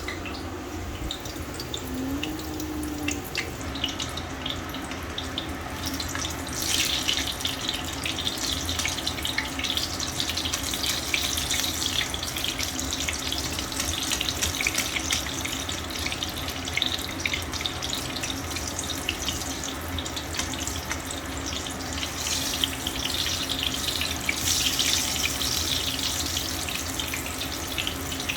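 Kitchen tap running into a sink, the splashing growing louder about six seconds in as the water stream hits something under it.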